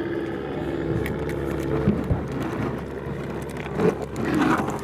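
An engine running steadily, with a few light knocks over it.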